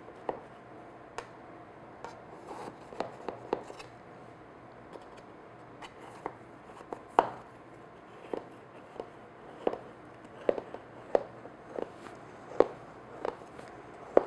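A thin metal spatula scraping around the inside wall of a metal tube pan to loosen a cooled chiffon cake: short scrapes and clicks of blade on metal, more frequent in the second half, about one a second.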